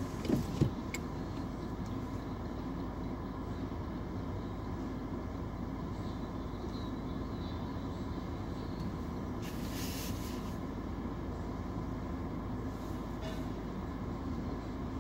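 Automatic car wash machinery running, heard from inside the car: a steady low rumble with a constant hum. A few short knocks come just after the start, and a brief hiss of spray about ten seconds in.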